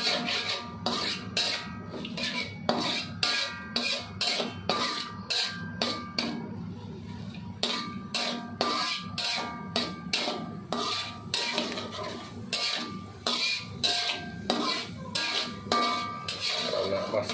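Metal spatula scraping and knocking against an aluminium wok in quick, irregular strokes as dried anchovies are stir-fried in oil.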